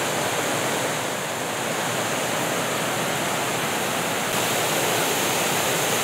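Steady rushing of water over the small cascades of a waterfall, getting a little louder about four seconds in.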